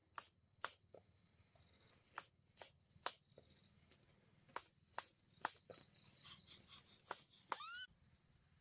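Faint hand claps, sharp and irregular, several in quick groups of three about two a second. Near the end comes a brief high, rising cry.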